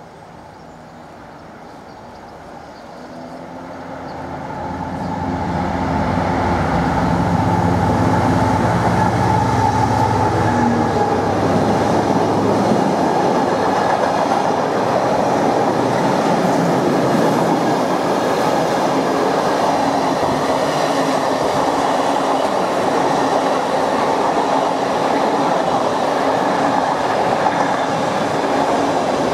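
Freightliner Class 70 diesel locomotive 70004 approaching and passing with a long container freight train. The engine grows louder over the first six seconds, then the container wagons roll past with a steady wheel-on-rail noise.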